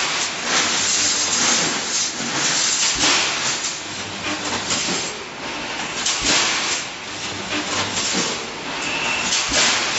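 Automatic rebar mesh welding machine running: the line of resistance welding heads hissing and crackling as they weld the cross bars, over a steady low hum. A heavy mechanical clunk comes about every three seconds.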